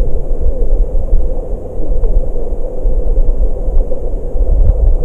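Stream current heard underwater through a camera's waterproof housing: a loud, steady, muffled rumble, with a few faint ticks.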